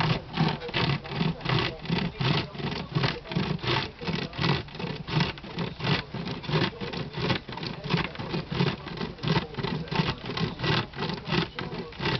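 Vintage hand-powered chainsaw cutting through wood, its teeth rasping in a steady rhythm of about four strokes a second.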